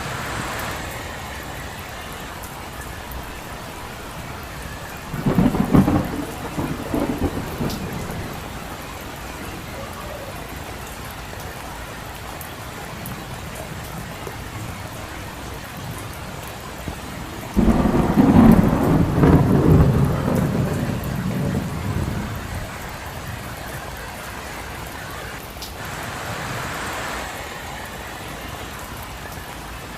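Steady rain with thunder: a peal about five seconds in, and a longer, louder rolling peal starting around eighteen seconds in.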